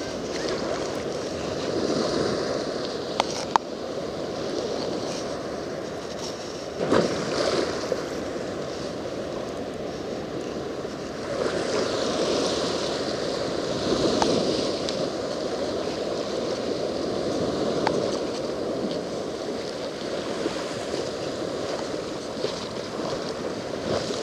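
Shallow ocean surf washing and breaking, swelling every few seconds, with a couple of sharp clicks a few seconds in.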